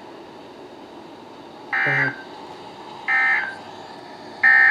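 NOAA Weather Radio sending three short bursts of two-tone digital SAME data, each under half a second and about 1.4 s apart, with faint radio static between them. This is the EAS end-of-message code that closes the severe thunderstorm warning.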